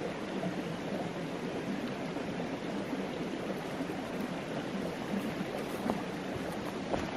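Small woodland stream babbling steadily, with a couple of faint footsteps on grass near the end.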